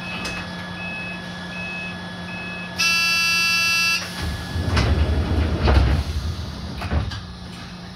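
Commuter train standing at a station: a short beeping signal repeats, then a loud departure buzzer sounds for about a second, followed by the sliding doors rumbling shut with several heavy thuds.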